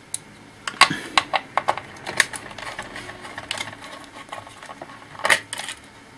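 Irregular clicks, taps and light clatter of small metal and plastic laptop parts being handled and worked loose during a teardown, with a cluster of clicks about a second in and the loudest knock near the end.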